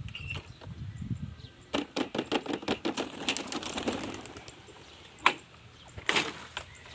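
Homing pigeons taking off, a rapid flurry of wing flaps lasting about two seconds, then a single sharp snap and another short burst of flapping near the end.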